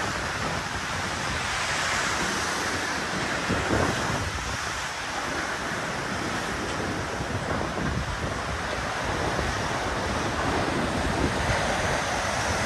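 Tsunami surge of seawater rushing ashore, churning over a seawall and through flooded ground in a steady rush, with wind buffeting the microphone.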